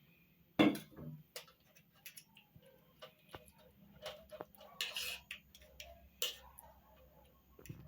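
Irregular light clicks and knocks of kitchen utensils and dishes, with one loud knock about half a second in and a brief scrape around the middle.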